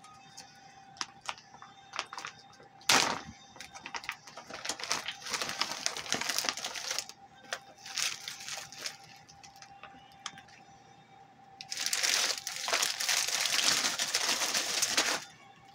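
Plastic MRE packaging crinkling and rustling as the meal bag is opened and its packets shaken out and handled, with scattered light clicks and taps. The rustling comes in bursts, loudest and longest near the end as a clear plastic bag of items is lifted out.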